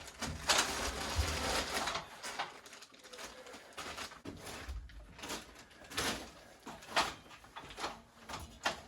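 Handling noises: rustling for about two seconds, then scattered light knocks and clicks.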